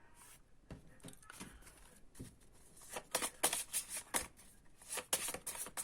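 Deck of fortune-telling cards being shuffled by hand: a few soft clicks, then from about three seconds in a quick run of crisp, papery clicks.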